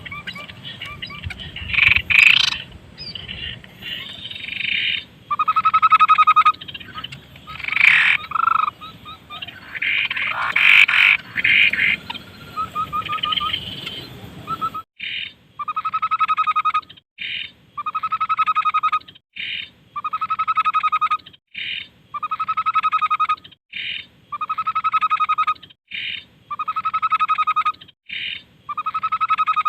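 Tepus (babbler) calling energetically. First comes a busy mix of varied notes. From about halfway, one rattling call repeats about every two seconds, each rattle about a second long, with short high notes between them.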